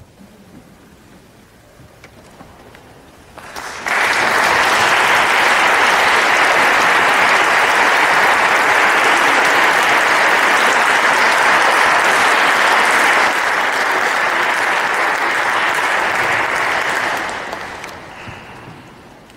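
Audience applauding. After a few seconds of quiet, the applause starts suddenly about four seconds in, holds steady, and fades out near the end.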